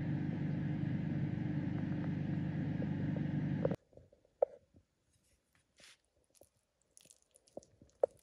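A steady low hum that cuts off suddenly about four seconds in. Then it is quiet apart from a few light clicks and taps of a metal fork stirring rice in a ready-meal tray.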